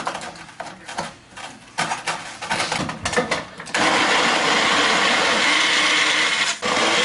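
Magic Bullet personal blender: first a series of knocks and clicks as the cup is handled and its blade base twisted on and set onto the motor base, then about three and a half seconds in the motor starts and runs steadily, blending a milk and strawberry drink. Near the end it cuts out for a moment and starts again.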